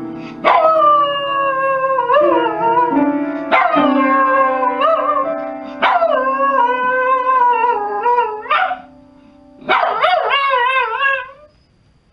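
A dog howling in long, wavering notes over piano notes. The notes are struck now and then and held. There are about five howls, with a brief break about 9 seconds in. The last howl has a quavering pitch and stops shortly before the end.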